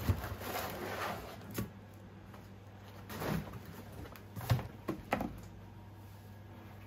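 Rustling of a deflated exercise ball being pulled free of a dried paper-mâché shell, with a few short knocks as the stiff shell is handled and tipped onto its side.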